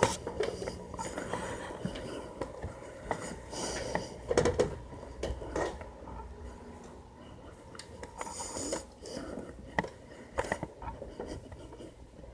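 Scattered light knocks, clicks and rustling scrapes from someone moving about and handling things in a small room.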